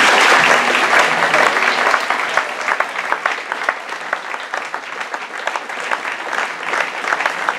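Audience applauding. The applause is fullest at first and thins over the next few seconds into more scattered individual claps.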